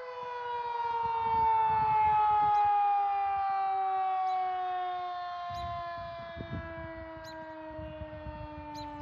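Federal Signal 2001-130 outdoor warning siren winding down, its single tone falling slowly and steadily as the Alert signal ends. It swells once about two seconds in, then fades a little.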